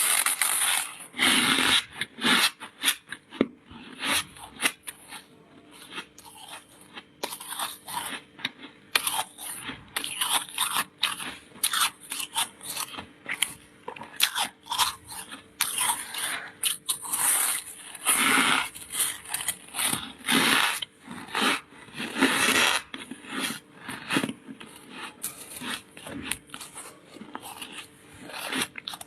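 Ice being bitten and chewed close to the microphone: a dense, irregular run of sharp crunches, with several louder bites standing out.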